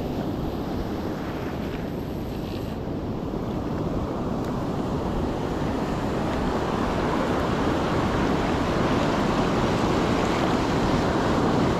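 Ocean surf washing on a beach, with wind on the microphone. The wash builds gradually louder through the second half.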